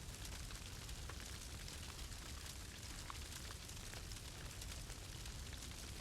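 A fire burning with a steady low rumble and scattered faint crackles and pops, as a continuous white-noise ambience.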